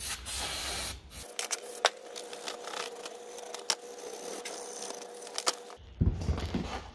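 Aerosol brake cleaner spraying in a hiss of about a second, then a brush scrubbing brake dust off a caliper carrier, with scattered sharp clicks. A few louder knocks come near the end.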